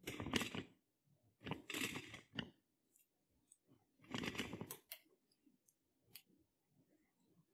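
Three short rasping bursts, with light clicks between them, as a coiled DisplayPort cable is handled and bundled with nylon zip ties.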